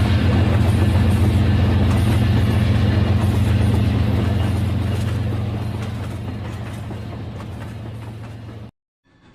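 Rail King battery-powered toy train running, its motor and wheels giving a steady whirring hum that fades as it moves away. The sound cuts off abruptly near the end.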